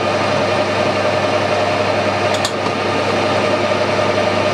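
Harrison lathe running steadily with a constant gear whine, while a carbide boring bar takes a light power-feed cut in the bore of an aluminium pulley. A brief click sounds about halfway through.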